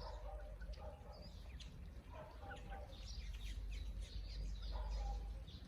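Birds chirping over and over in short high notes, with three longer, lower calls from poultry, one near the start, one about two seconds in and one about five seconds in, over a steady low rumble.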